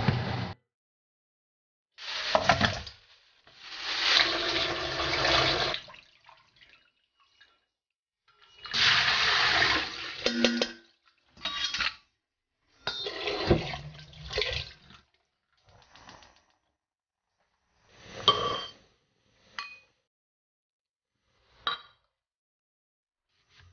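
Water running in several bursts of a second or two each, then short clinks and knocks of a ceramic stew pot and its lid.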